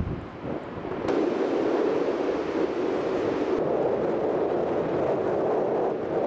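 Steady road noise from a moving car, a dense hiss of tyres and rushing air that dips briefly just after the start and then holds even.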